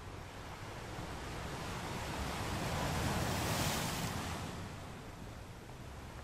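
Ocean waves: a single wave swells, breaks about three to four seconds in, and washes back to a steady surf hiss.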